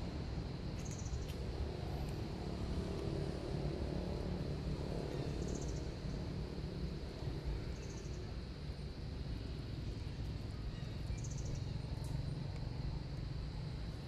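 Outdoor ambience: a steady low rumble, with short high chirps every few seconds.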